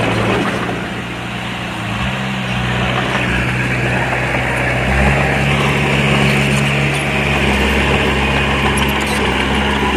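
Diesel engine of heavy earthmoving machinery running under changing load. It eases off about a second in, picks up again near two seconds, and runs harder and louder from about five seconds on.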